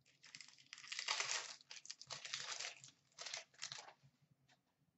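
Crinkling and tearing of a trading card pack's wrapper as it is ripped open, in several irregular rustling bursts.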